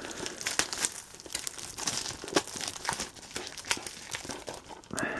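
Plastic wrapping being handled and pulled apart, with irregular crinkling and crackles and some tearing.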